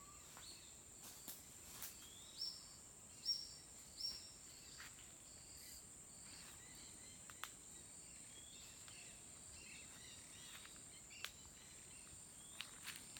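Rainforest ambience: a steady high-pitched insect drone with scattered bird calls. Three short rising whistles, the loudest sounds, come between about two and four seconds in.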